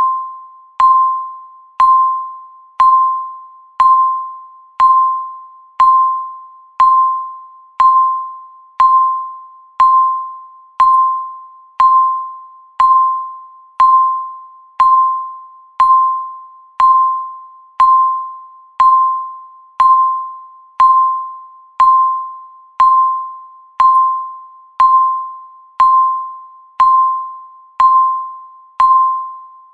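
Digital countdown timer beeping once every second: a short single mid-pitched electronic tone, each starting with a click and fading out, marking each second of the countdown.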